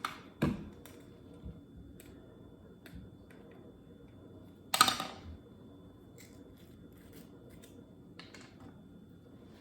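Light kitchen handling sounds while vanilla is measured out: a sharp click about half a second in, a few small ticks, and a brief clatter about five seconds in.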